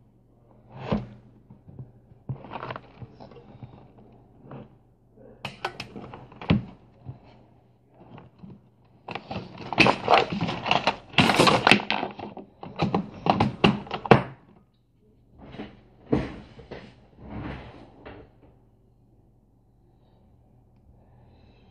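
Handling noise close to the microphone: a person moving over the desk and camera. It is an irregular run of thunks, knocks and rustles, busiest and loudest in the middle, then a few separate knocks before it settles.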